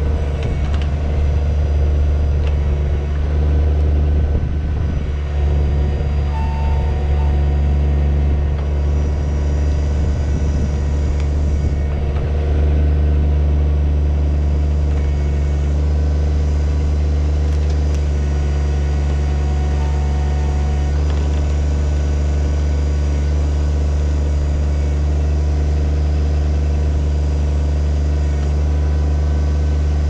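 Kubota BX25 subcompact tractor's three-cylinder diesel engine running steadily while it powers the backhoe hydraulics, the boom and bucket digging around a tree stump.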